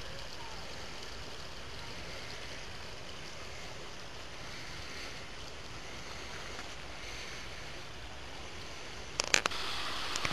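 Steady hiss of running water from a small stream feeding a pond, with a quick cluster of sharp clicks about nine seconds in.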